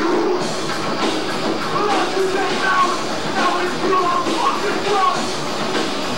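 A live punk rock band playing loud, distorted music: electric guitars, bass and drums, picked up by a camcorder microphone in the crowd.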